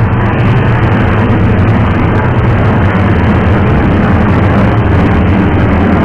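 Boeing 737-700's twin CFM56-7B turbofan engines at takeoff thrust during the takeoff roll: a loud, steady jet noise heavy in the low end, with road traffic passing close by.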